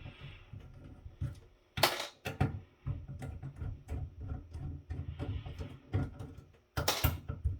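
Screws being backed out of a rack mixer's jack board, some of them self-tapping screws cutting through the plastic of the XLR jacks. A low rumble of tool and handling noise runs throughout, broken by two loud sharp clacks, about two seconds in and again near the end.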